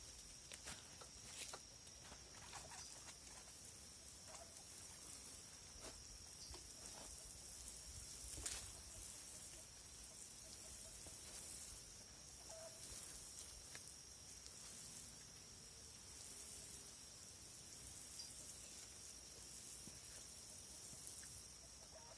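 Faint patter of water sprinkling from a watering can's rose onto soil and seedlings, with a few small taps.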